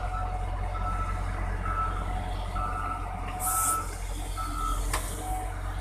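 Volvo wheel loader's reversing alarm beeping about once a second while the machine backs up, over the steady low running of its engine. A short hiss comes about three and a half seconds in, and the beeping stops near the end.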